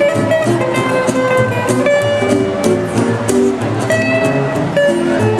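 A street band plays an upright double bass and two acoustic guitars. One guitar strums a steady rhythm, the other picks out a melody, over a walking bass line.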